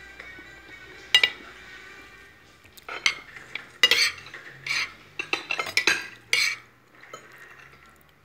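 Cutlery clinking and scraping on a ceramic plate of rice and chicken: one sharp clink about a second in, then a run of clinks and scrapes in the middle.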